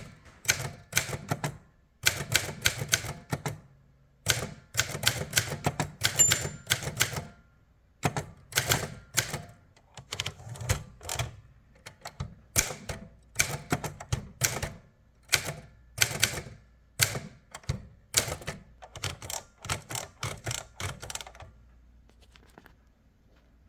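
Remington Mark II manual portable typewriter, built on the Torpedo 18B mechanism, being typed on: quick runs of sharp key strikes with short pauses between words and lines. The typing stops near the end.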